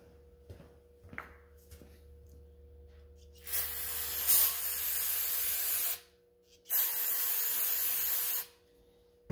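Aerosol brake cleaner sprayed into a freshly honed brake master cylinder bore to flush out the honing residue: two long hissing bursts, the first about two and a half seconds, the second nearly two, each cut off sharply. Light clicks of parts being handled come before them.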